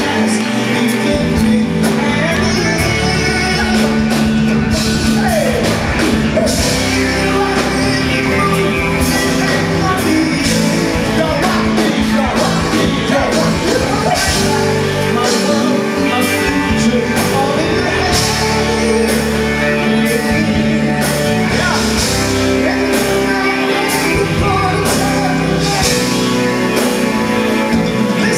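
Live gospel band playing at full volume with a steady beat, with lead and backing singers over it.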